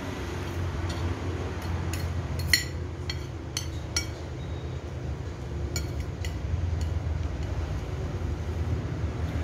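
Metal spoon and fork clinking against a plate as someone eats, about ten sharp clinks in the first seven seconds, the loudest about two and a half seconds in. A steady low rumble runs underneath.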